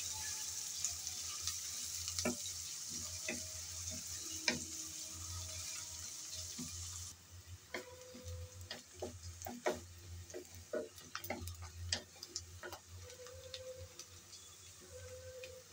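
Sliced onions sizzling in hot oil in an aluminium kadai, stirred with a wooden spatula that scrapes and taps against the pan. The hiss of the frying drops away sharply about halfway through, leaving mostly scattered taps and scrapes of the spatula.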